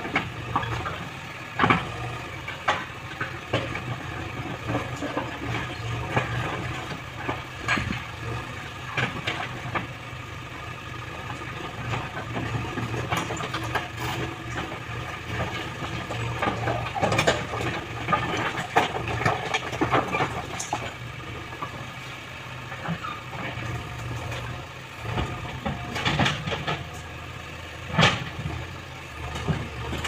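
JCB 3DX backhoe loader's diesel engine running steadily as the backhoe digs, with repeated sharp clunks and rattles of stones knocked and dropped by the bucket.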